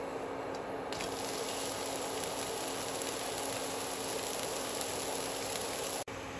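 Thin pancake sizzling in a hot frying pan after being flipped onto its uncooked side. The sizzle starts suddenly about a second in, over the steady hum of the induction cooker's fan, and cuts off abruptly near the end.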